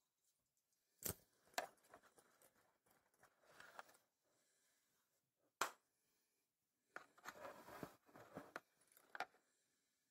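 Faint handling noise: a few sharp clicks and short stretches of rustling, like something being moved or handled close to the microphone.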